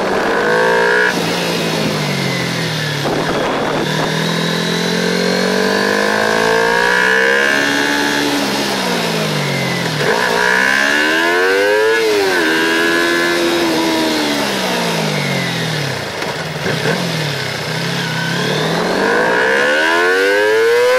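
Kawasaki Ninja 250 motorcycle engine running under way, its pitch rising and falling several times as the throttle is opened and closed through the bends, with steady wind rush.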